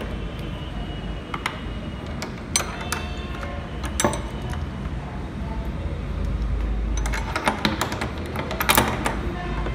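Metal clicks and clinks of a padlock and a bunch of keys being handled at a door's sliding barrel bolt, with a quick run of sharper clicks near the end as the padlock is hooked through the bolt to lock it. A low rumble runs underneath.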